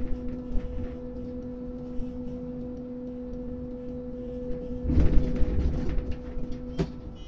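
Steady electric hum of the port crane's machinery, one low tone with another an octave above it. A louder rumbling surge comes about five seconds in, and a single sharp click near the end.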